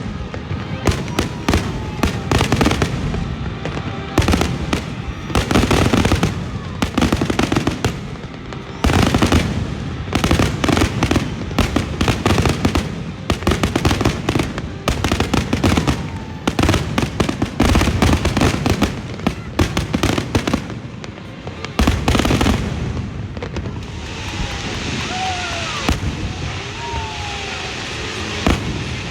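A fireworks display with shells bursting in quick, dense succession: sharp bangs and crackling, many per second. About three-quarters of the way through, the bangs thin out into a steady crackling hiss with a few short whistling glides.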